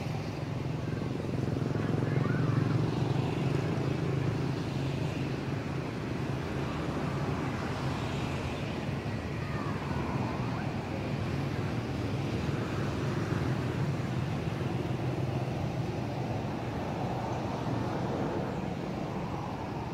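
Steady low hum of motor vehicle engines running, a little louder about two to four seconds in.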